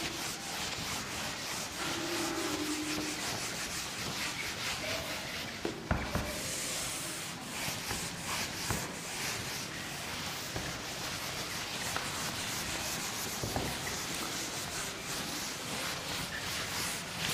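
Board eraser rubbing back and forth across a whiteboard, wiping off marker writing, in continuous strokes with a few light knocks.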